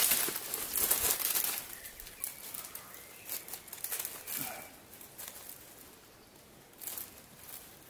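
Rustling and crackling of leaves and brush, loudest in the first second and a half and quieter after, with a few faint bird chirps in the background.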